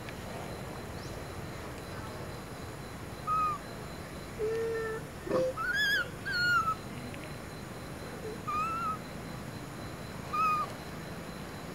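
Baby long-tailed macaque giving short, squeaky whimpering coos, about seven calls that each rise and fall, bunched together in the middle.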